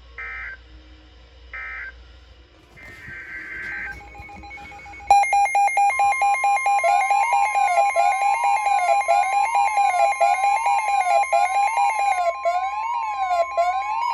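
Emergency alert signal: three short screeching digital data bursts, then from about five seconds in a loud electronic alarm. It is a tone warbling up and down a little more than once a second, joined about a second later by a steady higher tone.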